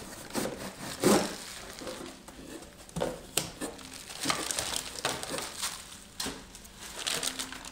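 Packaging being handled while an RC car's contents are unpacked: rustling and crinkling with scattered light knocks and clicks, the loudest knock about a second in.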